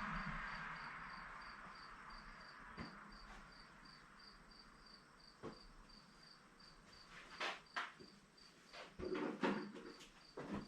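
Cricket chirping steadily, about three or four high chirps a second. A hiss fades out over the first few seconds, and a few sharp clicks and rustles come in the second half.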